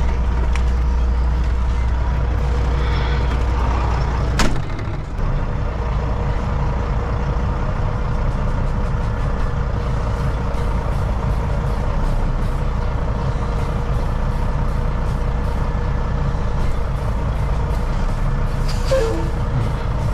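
Western Star truck's diesel engine running steadily, heard inside the cab, with a faint steady whine. A sharp click about four and a half seconds in, followed by a brief dip in the engine sound.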